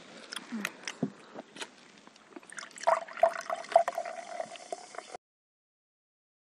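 Coca-Cola poured from a bottle into a glass mug. The pour starts about three seconds in as a gurgling stream with a steady ringing tone and lasts about two seconds, after scattered small clicks. The sound then cuts off abruptly to silence.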